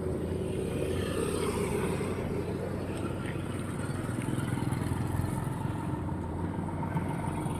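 Roadside traffic: vehicle engines running steadily with road noise.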